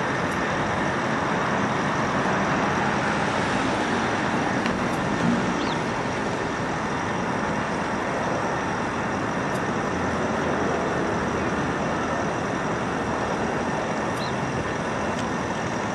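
Korean Air Airbus A380's jet engines at taxi power: a steady distant roar with a faint high whine riding above it.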